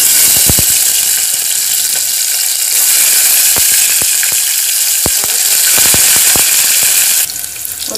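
Shallots and curry leaves frying in hot sesame oil in a steel pot: a loud, steady sizzle with scattered crackling pops. It dies down just before the end.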